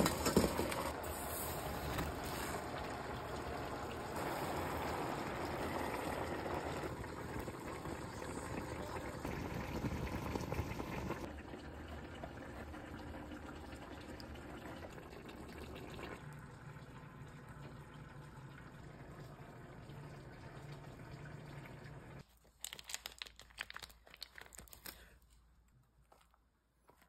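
Pot of strawberries in water boiling: a steady bubbling hiss, louder for the first eleven seconds or so and then quieter. Near the end come a few short rustling sounds, then near silence.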